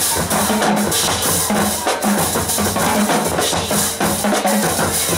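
High school marching band playing, brass and sousaphones over a drumline, with the drums prominent.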